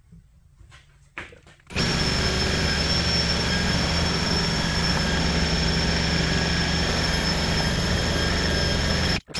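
Cordless drill spinning the oil-free piston pump of a California Air Tools 2010A compressor by its shaft: a loud, steady high whine over a low hum, starting about two seconds in and cutting out for an instant near the end. The pump has 3-in-1 oil squirted in to seal cylinder walls scored by brass shavings, and it is starting to build a little pressure.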